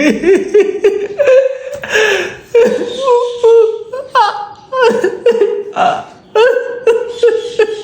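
High-pitched wordless vocal sounds from a child, a string of short hums and grunts that glide up and down in pitch, made in place of speech while he keeps to a vow of silence.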